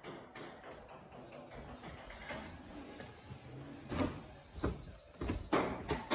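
Footsteps going down carpeted stairs: a few soft thuds in the second half, over a low steady room hum.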